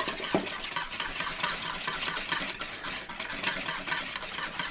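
Wire whisk beating an olive oil, vinegar and mustard marinade in a bowl: a steady swishing of the wires through the liquid.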